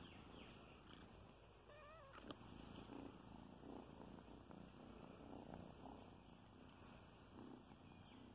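A kitten purring faintly, close to the microphone, in slow even pulses.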